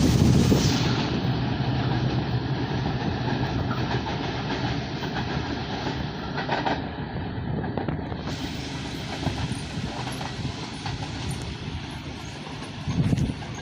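A train's wheels running over the rail joints with a clickety-clack as the cars roll past, growing steadily quieter as the train moves away. A brief louder rumble comes near the end.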